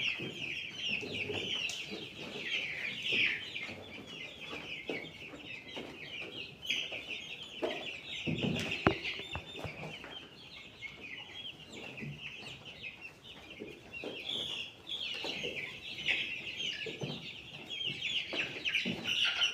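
A flock of chickens calling: a dense, continuous chorus of short high calls, with a few scattered knocks.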